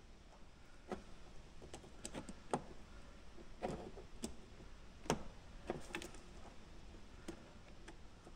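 Scattered small clicks and taps of plastic and metal parts on an FMS Toyota Land Cruiser FJ40 RC crawler's chassis, handled by hand as a drive shaft is fitted into the transfer case. There are about ten separate light knocks at irregular spacing.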